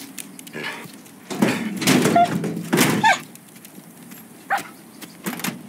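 A Belgian Malinois military dog snarling and barking in a struggle, in several loud rough bursts between about one and three seconds in, then quieter.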